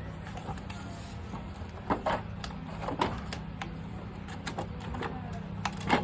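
Irregular light clicks and knocks of a pet door frame and its long mounting screw being handled while fitting, with sharper taps about two, three and six seconds in.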